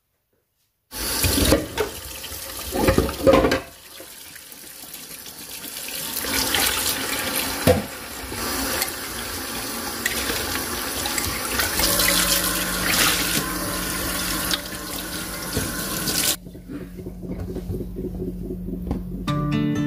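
Kitchen tap running into a stainless steel sink as dishes are rinsed by hand, with a few loud knocks and clatters about two seconds in. The water shuts off suddenly near the end.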